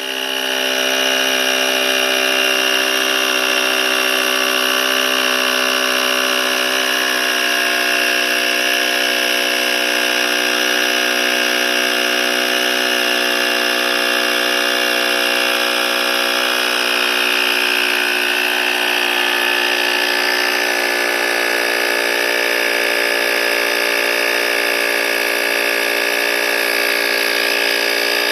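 Cordless portable tire inflator's small electric compressor running with a steady, even hum as it pumps a motorcycle tire from about 21 psi toward a preset 32 psi.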